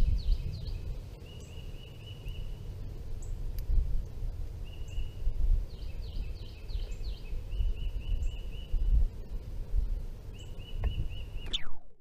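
Northern cardinal singing close by: series of quick down-slurred whistles alternating with runs of rapid, even repeated notes, over a constant low rumble. The sound cuts off abruptly near the end.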